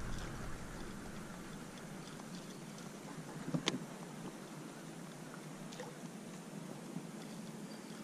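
Faint steady hum of a boat motor pushing the boat at slow trolling speed, with one short knock about three and a half seconds in.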